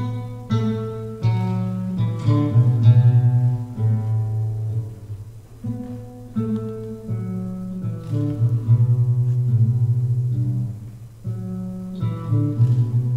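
Solo classical guitar played fingerstyle: a slow plucked melody, each note ringing out and fading, over low bass notes held beneath it.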